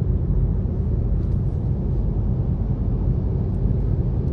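Steady low rumble of a car driving on the freeway, heard from inside the cabin: road and engine noise with no sharp events.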